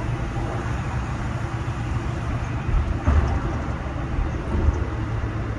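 Steady low road and engine rumble heard inside a moving car, with a couple of louder bumps about three seconds in and again near the end.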